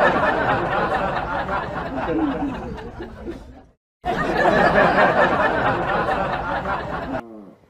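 Audience laughter, a dense laugh track that fades out about three and a half seconds in, stops briefly, then starts again and fades near the end.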